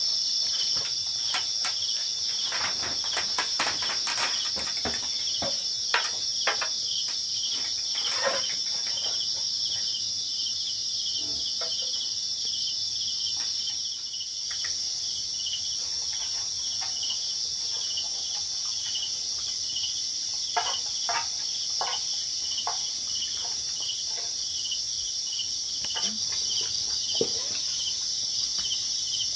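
Insects trilling steadily with a high, fast-pulsing chorus, with scattered small clicks and knocks on top.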